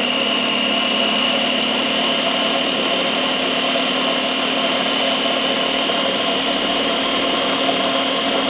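Small electric mini food chopper running steadily with a high, even motor whine while it purées beets into hummus.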